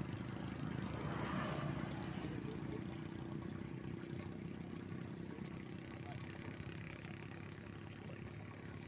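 A motorbike engine running steadily with a low hum, growing slowly fainter as it moves away.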